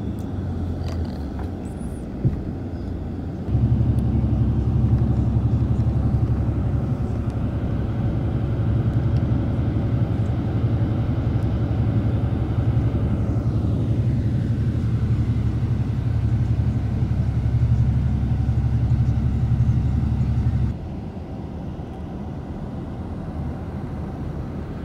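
Steady low rumble of an Intercape coach's engine and road noise heard from inside the cabin. It jumps abruptly much louder a few seconds in and drops back just as suddenly near the end, with one short knock shortly before the jump.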